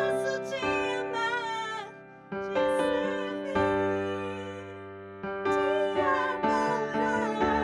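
A woman singing a worship song into a handheld microphone over keyboard accompaniment. She holds long notes with vibrato, in phrases broken by short pauses.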